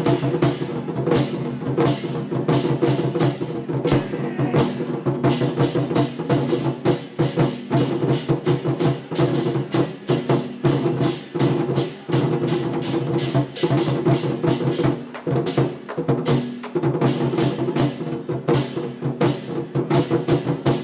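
Temple war-drum troupe playing: many fast, loud drum strikes in a driving rhythm over a steady sustained tone.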